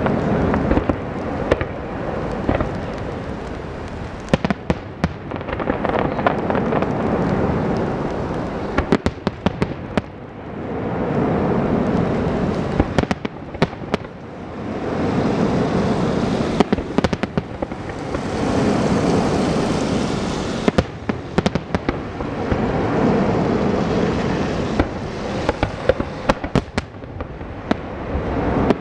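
Aerial fireworks display: shells bursting in rapid succession, sharp bangs over long swells of overlapping explosions and crackle. The swells rise and fall every few seconds.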